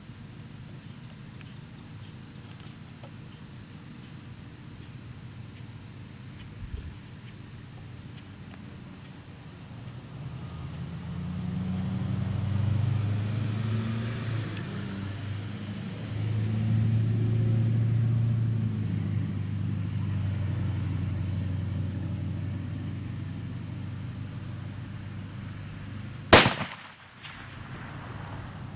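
A single shot from a .45 caliber muzzleloader built on a Remington 700 action with a muzzle brake, loaded with 100 grains of Blackhorn 209: one sharp crack about two seconds before the end. Before it, a low drone rises and wavers for several seconds, then fades.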